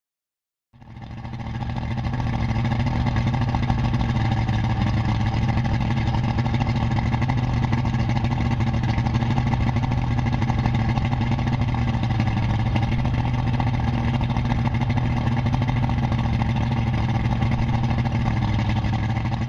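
An engine running steadily at constant speed, with a strong low hum, fading in within the first second.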